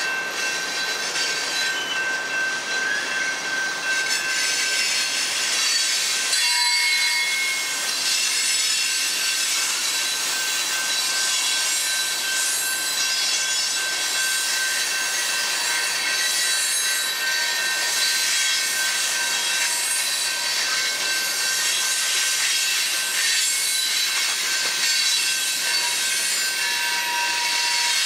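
Freight cars of a long manifest train rolling past: a steady clatter and rumble of steel wheels on the rails, with high-pitched squealing tones from the wheels that come and go.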